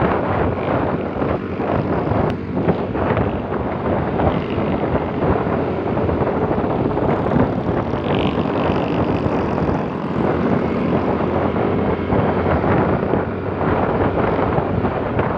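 A motorcycle's engine running at road speed, heard from the rider's seat, mixed with rushing wind and road noise as a steady, dense roar.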